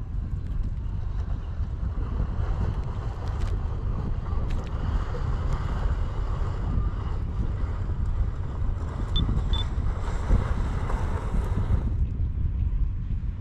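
Wind buffeting the microphone as a constant rumble, under a rushing hiss that cuts off about twelve seconds in. Two short high chirps come about nine seconds in.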